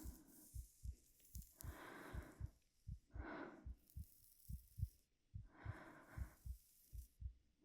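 A slow, steady heartbeat, each beat a pair of soft low thumps, with a woman's gentle breaths drawn in and let out three times over it.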